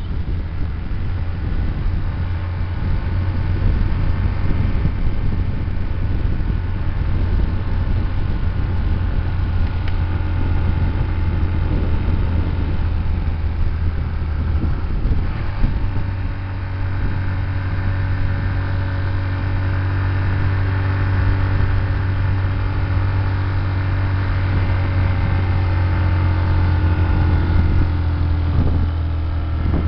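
Motorcycle engine running steadily at cruising speed, recorded on the moving bike with wind rushing over the microphone; the engine note dips and changes about halfway through.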